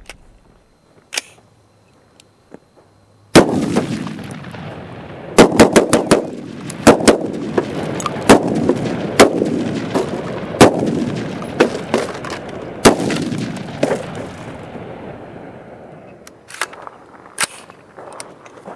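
AR-15 pistol firing steel-cased ammunition semi-automatically: one shot, then a quick run of several shots and a string of irregularly spaced shots about half a second to a second apart, each ringing out with an echo. Two more shots come near the end.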